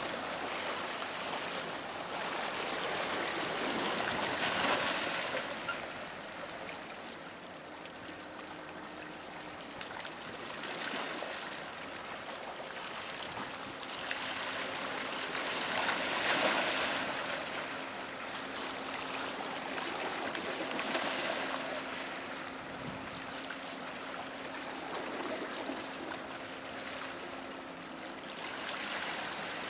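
Water washing and lapping against the rocks of a breakwater, swelling in surges every few seconds. A faint, steady low hum runs under it from about halfway through.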